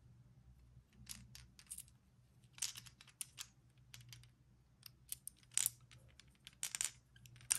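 A hard plastic Yo-Zuri deep-diving minnow lure being turned over in the hand: faint, scattered light clicks and ticks in a few short clusters.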